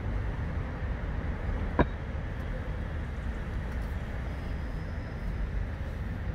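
Steady low rumble of outdoor city background noise, with one sharp click almost two seconds in.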